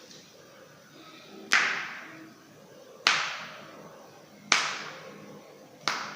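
Human joints being cracked one after another: four sharp pops about a second and a half apart, each trailing off over about half a second.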